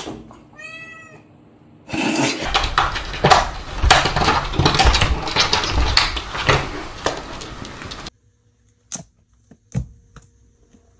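A domestic cat meows once about half a second in. From about two seconds in comes a dense run of knocks, thumps and scrabbling for about six seconds, then it goes quiet apart from a few faint taps.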